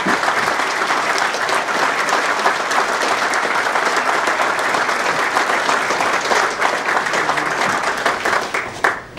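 Audience applauding, a dense steady clapping from a roomful of people that drops away sharply near the end.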